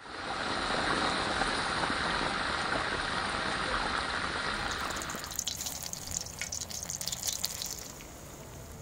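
A steady, dense hiss for about the first five seconds gives way to cauliflower pakoras deep-frying in hot oil: a lighter sizzle scattered with many sharp crackles and pops.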